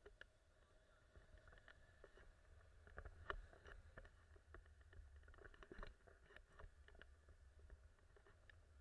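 Faint, muffled wind rumble on the camera during a tandem paraglider flight, with scattered clicks and rubbing from the camera's mount and the harness. The clicks are busiest a few seconds in.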